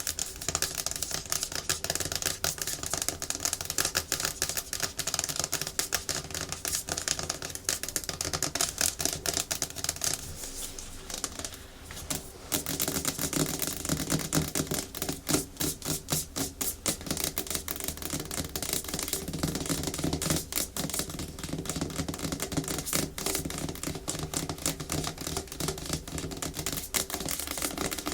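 Natural fingernails tapping fast and hard on a hard plastic surface, a dense run of sharp clicks, with scratching mixed in. The clicks thin out briefly a little before the middle, then pick up again.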